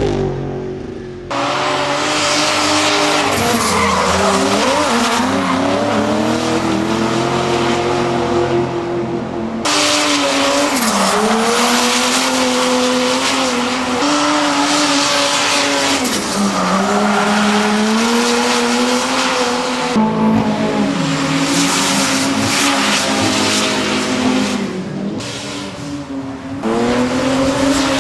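The Mercedes W123's 3.0-litre OM606 straight-six turbodiesel is driven hard while drifting, its revs dropping and climbing again and again, with tyre squeal. The sound changes abruptly several times.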